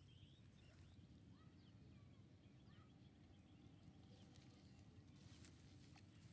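Near silence: faint ambience with a low rumble, a steady high hiss and a few faint, brief bird chirps.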